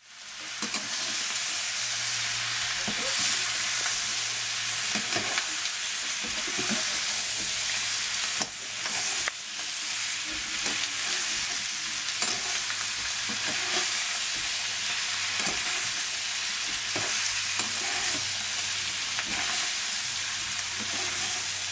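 Pork frying in hot oil in a pan: a steady loud sizzle, with occasional scrapes as it is stirred.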